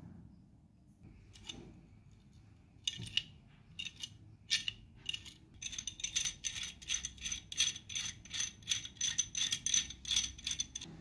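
Self-adjusting steel pipe wrench worked by hand, its jaw mechanism clicking metal on metal. A few scattered clicks come first, then a quick even run of about four ringing clicks a second as the jaw is swung open and shut over and over.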